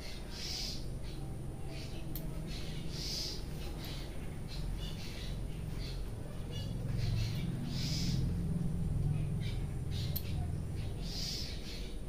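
Head massage: hands rubbing and working through long hair, a steady low rustle that swells in the middle. Short high rasping bursts come about every three seconds.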